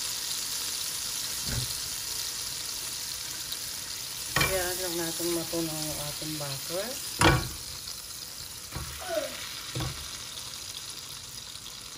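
Melted butter sizzling steadily in a nonstick pan while a silicone spatula stirs it, with a few sharp knocks of the spatula against the pan.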